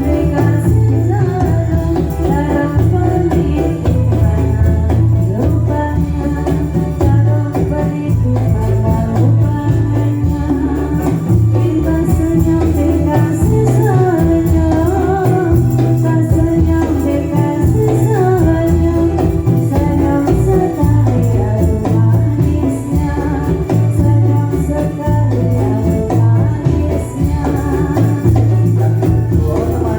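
Dolalak dance music: a steady, repeating low drum beat under a wavering melody line.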